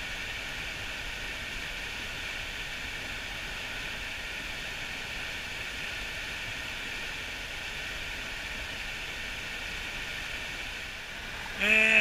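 Steady rush of a mountain stream's flowing water.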